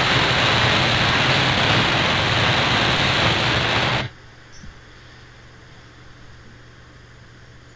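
Shortwave AM receiver static: an even hiss from an RSPduo SDR tuned to 6.040 MHz with no station coming through clearly. It cuts off suddenly about four seconds in, leaving only a faint low hum.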